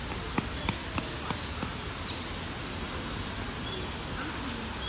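Steady outdoor background noise, with a quick run of light taps in the first second or so and a few faint high chirps later.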